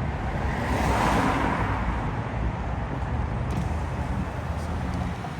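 Road traffic noise with a steady low engine hum, and a vehicle passing about a second in.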